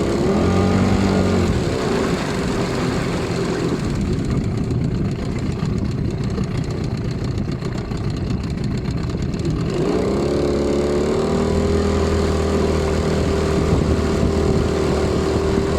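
HDX 9.8 outboard motor running, with a light rapid tapping knock in its sound, 'tsik-tsik-tsik', that the owner is checking as a fault. The engine note goes rougher for several seconds in the middle, then settles back to a steady run after about ten seconds.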